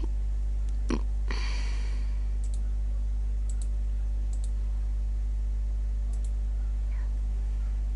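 Computer mouse clicks: a sharp click about a second in and another just after, then several fainter clicks, some in quick pairs, over a steady low hum.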